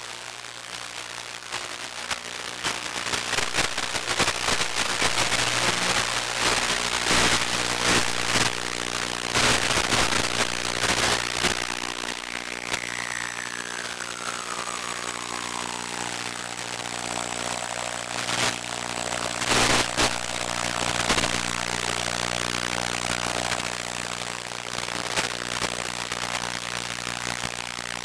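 Multirotor's electric motors and propellers buzzing steadily in flight, with crackling wind buffets. About halfway through, a whine slides down in pitch and then levels off.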